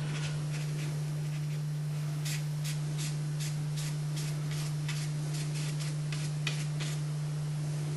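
A paintbrush dabbing short vertical strokes onto watercolour paper, a soft scratchy brushing about three times a second, over a steady low hum.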